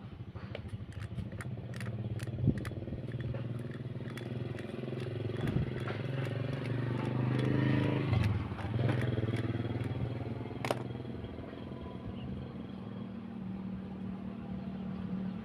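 Motorcycle engine running steadily, revved up once about halfway through and settling back. There is a run of light clicks in the first few seconds and a single sharp click later on.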